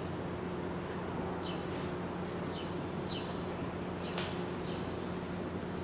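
Workshop room tone: a steady low electrical hum, with faint short high chirps that fall in pitch every second or so and a single sharp click about four seconds in.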